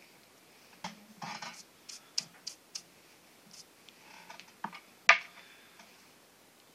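A hand brushing rubber eraser crumbs off a sheet of drawing paper: a run of short scratchy brushes and sharp ticks against the paper, the loudest a sharp tap about five seconds in.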